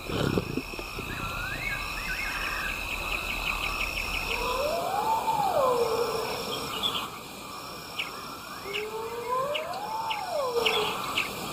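Night bush ambience: steady insect trilling and chirping, with two whistled calls, each rising and then falling in pitch, about five seconds apart.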